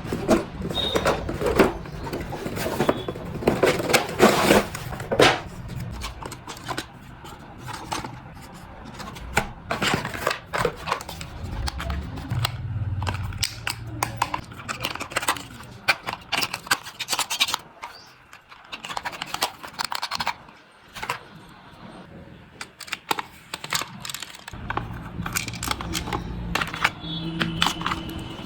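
Packaging of a toy RC car being handled and opened: irregular tearing, rustling, scraping and small knocks of cardboard and plastic.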